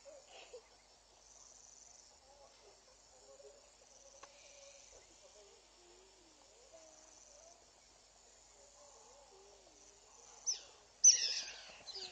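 Crickets chirping in even pulsed trills, with faint low wavering calls underneath. Near the end, a burst of loud, sharp, falling bird calls, repeated several times.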